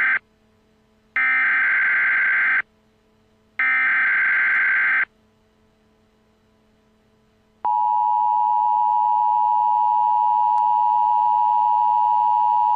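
Emergency Alert System digital data bursts, the screechy warbling SAME header-style tones. One burst ends right at the start and two more of about a second and a half each follow, with short gaps between them. After a couple of seconds of near silence, a loud, steady, unbroken alert tone starts about three quarters of the way in and holds.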